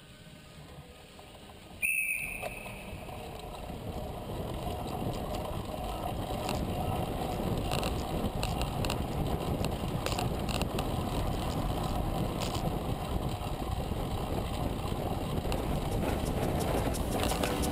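Wind rushing over an onboard camera and track-bike tyres rumbling on wooden velodrome boards. The noise grows louder as the pace builds, with scattered light clicks. A brief high tone sounds about two seconds in, where the level jumps.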